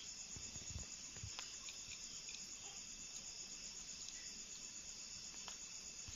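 Faint, steady chorus of crickets chirping at night, with a few soft low knocks about half a second to a second and a half in.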